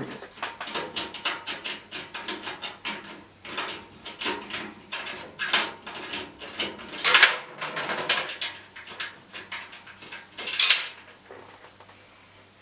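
Hands working on a computer case: irregular clicks, knocks and rattles of parts being handled and fitted, with two louder scraping sounds about seven and ten and a half seconds in.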